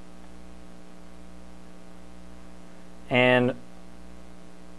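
Steady electrical hum, several low tones held level without change, with one short spoken word about three seconds in.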